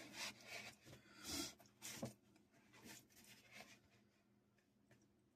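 Paper rustling and rubbing as sheets of drawings are leafed through, a few short scrapes in the first three seconds, then near silence.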